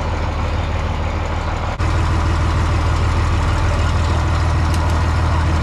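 Old farm tractor's engine idling steadily with a deep, even hum, just after a cold start.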